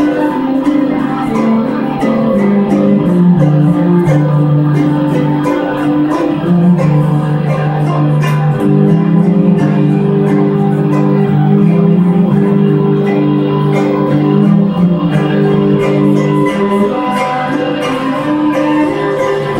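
A live band playing: guitar with long held notes and a steady beat of percussion.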